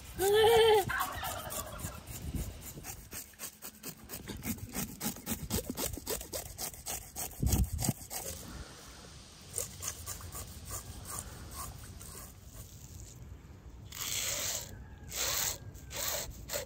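Knife scraping the scales off a whole salmon in quick, rasping strokes, with a few heavier strokes near the end. A short, loud, high-pitched call sounds at the very start.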